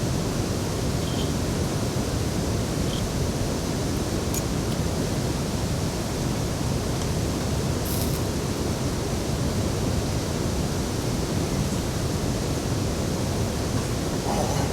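Heavy rain falling steadily, a constant even hiss with a few faint short clicks in the middle.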